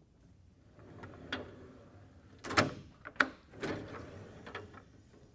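A steel tool cabinet drawer, on a Mac cabinet made by Lista, sliding along its runners. A string of clicks and clunks follows, the loudest in the middle, as the drawer is pulled open and pushed shut.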